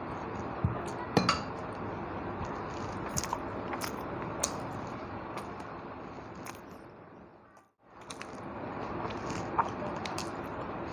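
Eating at a table: chewing with scattered sharp clicks and clinks of a plate, over a steady background hiss. The sound fades almost to nothing for a moment about three-quarters of the way through, then returns.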